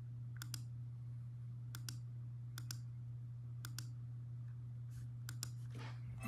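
Computer mouse clicking: about five quick double clicks, each a press and release, spaced a second or so apart, over a low steady hum.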